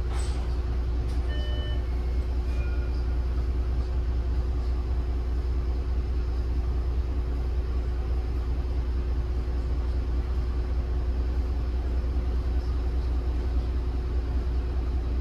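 Heuliez GX 137 city bus with its Iveco Tector 7 diesel engine running steadily: a constant low drone with a steady hum that does not change. A few brief high squeaks come between about one and three seconds in.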